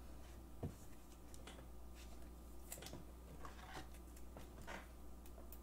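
Faint, scattered soft clicks and rustles of a trading card being handled, with a small knock about two-thirds of a second in, over a low steady hum.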